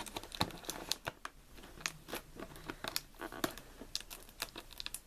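Cardboard packaging being opened by hand: irregular crinkling, tearing and small clicks as the taped box is worked open.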